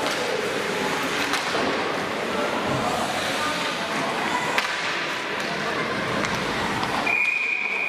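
Indoor ice hockey rink during play: an even wash of game noise with voices calling out and a few sharp knocks of sticks and puck. About seven seconds in, a referee's whistle sounds one long steady blast, stopping play.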